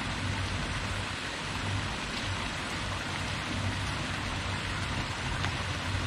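Steady rushing hiss of running water, with a low hum underneath.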